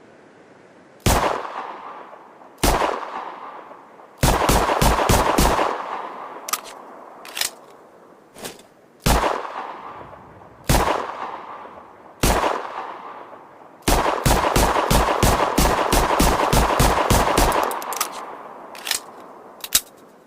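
Ruger Security-9 9mm pistol firing: two single shots, a quick string of about seven rounds, three more single shots, then a long rapid string of about fifteen rounds. Each shot rings away afterwards, and a few fainter clicks fall between the strings and near the end.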